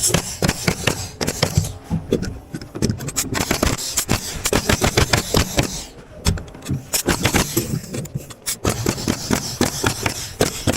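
Rapid, irregular knocks and clatter from house-framing work: lumber and tools being handled and knocked together.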